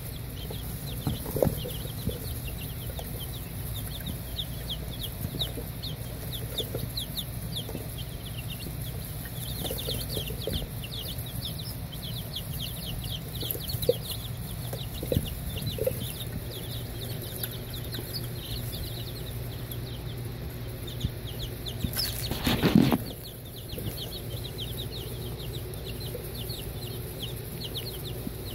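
Baby chicks and turkey poults in a brooder peeping constantly, a dense stream of short high cheeps that slide downward, over a low steady hum. About two-thirds of the way in, a brief loud scuffing noise lasts about a second.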